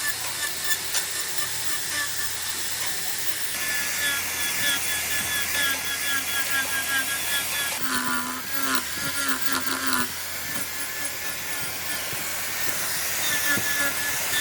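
A hand-held power tool running steadily while working wood.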